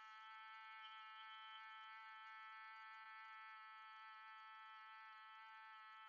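A quiet, steady hum held on one unchanging pitch: bhramari pranayama, the humming 'bumblebee breath' made on a slow exhale.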